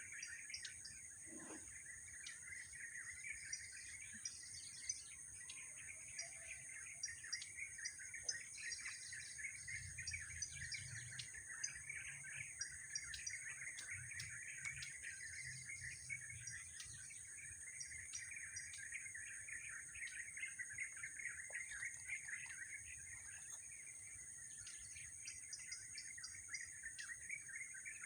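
A dense chorus of small birds chirping and calling continuously, with a steady high hiss underneath.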